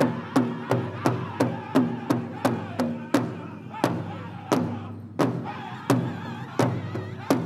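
Powwow drum group beating a large drum in unison, about three strokes a second, with the singers' voices carrying the song over it. About three seconds in the beat drops to half the pace, with a stroke roughly every 0.7 s.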